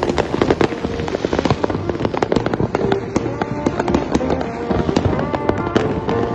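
Many fireworks and firecrackers going off at once, a dense, unbroken stream of sharp bangs and pops, with music underneath.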